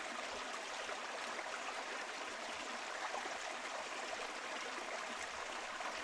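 Shallow rocky stream flowing over stones and small riffles, a steady, even rush of water.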